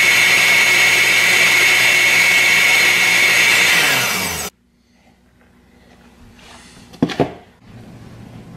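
Countertop blender motor running at full speed, churning a thick ice-cream milkshake with a steady high whine, then stopping abruptly about halfway through. Near the end come two sharp knocks in quick succession.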